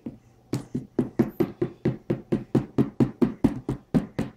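Rapid, even knocking or tapping, about five knocks a second, starting about half a second in.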